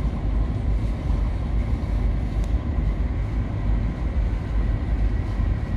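Ship's engine running with a steady low rumble and faint, steady high-pitched tones above it.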